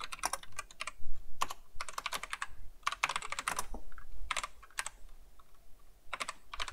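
Typing on a computer keyboard: quick bursts of keystroke clicks with short gaps between them, and a lull about five seconds in before a last burst.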